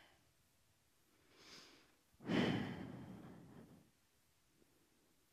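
A man draws a breath, then lets out a long, heavy sigh that fades away.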